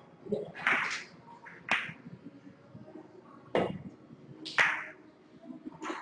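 Snooker balls knocking on the table: four sharp clicks and knocks, spread over a few seconds, as the cue ball runs about the table.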